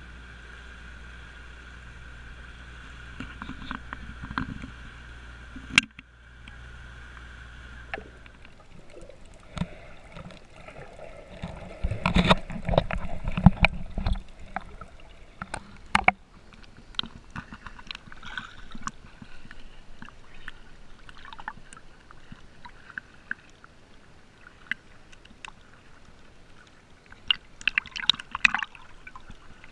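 A boat's engine drones steadily for the first eight seconds or so. Then water sloshes, bubbles and splashes around a snorkeller in fins, heard from a camera dipping in and out of the sea. Bursts of heavy splashing come about twelve to fourteen seconds in, and again near the end.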